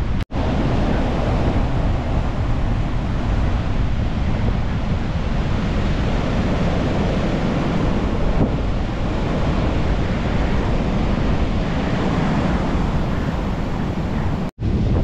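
Sea waves breaking and surf washing up the beach, with wind buffeting the microphone, as a steady rush of noise. It cuts out for an instant shortly after the start and again near the end.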